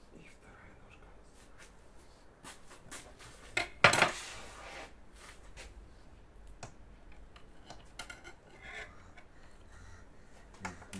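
Metal clinking and scraping of tandoor meat hooks as a roasted lamb leg is lifted out and pulled off its hook onto a board, with one loud clank about four seconds in.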